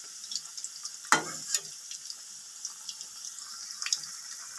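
Mixed-vegetable pakoras deep-frying in hot oil in an aluminium karahi: a steady sizzle with scattered crackles. A metal spatula knocks against the pan about a second in, with lighter knocks after.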